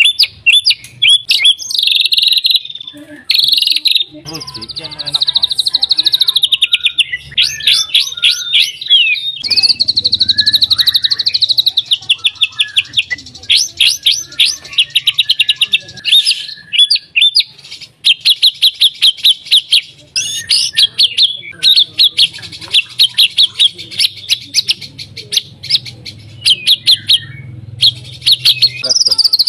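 A white-rumped shama singing a loud, varied song: long fast rattling runs of repeated notes and quick whistled phrases, broken by brief pauses.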